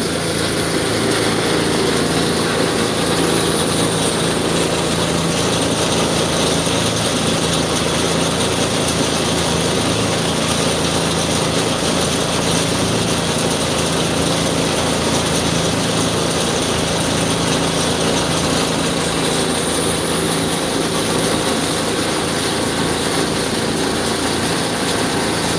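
Water tanker truck's engine idling steadily, feeding the watering hose.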